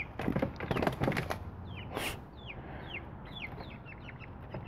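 Chickens giving rapid, repeated short high calls that fall in pitch, the agitated calling of hens frightened after a skunk attack. Scuffling clicks sound in the first second or so, with a brief rustle about two seconds in.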